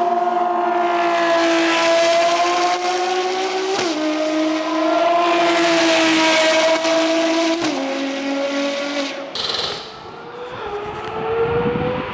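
Ferrari FXX K's hybrid V12 at full throttle, pulling away with its pitch climbing and two quick upshifts, about 4 and 8 seconds in. The note then fades, and near the end the engine is heard again, its pitch rising as the car accelerates toward the listener.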